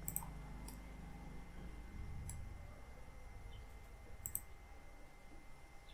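A few sharp computer mouse clicks, spaced apart, with a quick double click about four seconds in, over a faint steady background tone.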